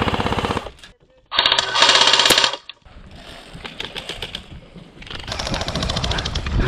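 Airsoft gun firing full-auto bursts of rapid shots. One burst stops just under a second in, a louder one follows about a second later, and another starts near the end.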